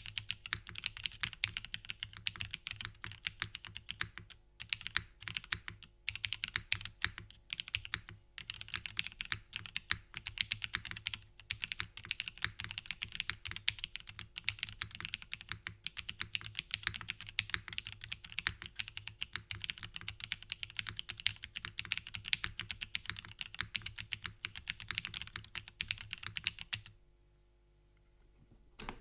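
Continuous fast typing on a foamless, top-mounted Constance TKL mechanical keyboard with lubed Cherry MX Black Ultraglide linear switches, an aluminium plate and GMK keycaps: a dense stream of key clacks with a few brief gaps, stopping about two seconds before the end.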